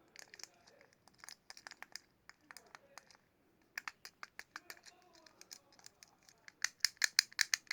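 Plastic ASMR fidget cube being clicked and scratched: a run of sharp, irregular clicks, sparse at first, then faster and louder over about the last second.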